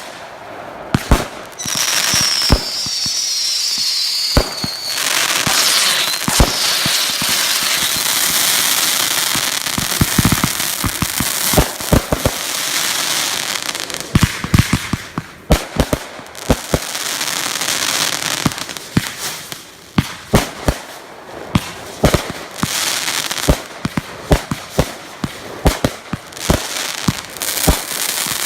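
Consumer fireworks going off: many sharp bangs and crackles in quick succession over a steady fizzing hiss. A brief high whistle sounds a couple of seconds in.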